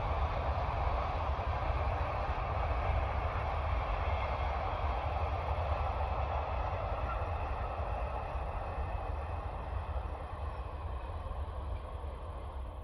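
Container freight train wagons rolling past at a distance, a steady rolling rumble that slowly fades as the end of the train moves away.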